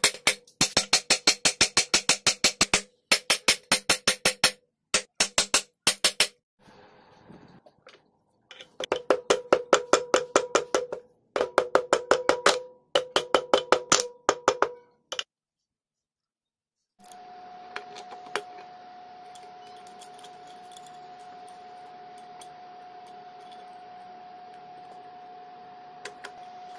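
Rapid metal hammer taps with a ringing note, in bursts of a couple of seconds at several taps a second, as the aluminium side cover of a Rajdoot motorcycle engine is knocked onto the crankcase. The tapping stops about fifteen seconds in, and after a short silence a steady high-pitched hum with faint hiss remains.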